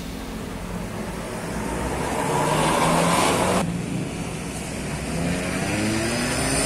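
Diesel tour buses passing on a road, engine running with tyre and road noise. The noise swells and cuts off abruptly about three and a half seconds in, then another bus approaches with its engine note rising.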